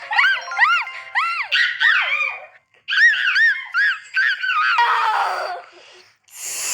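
Bird calling: a quick series of short, arched whistled notes, each rising and falling in pitch, in two runs with a brief pause between them, followed near the end by a rougher falling note.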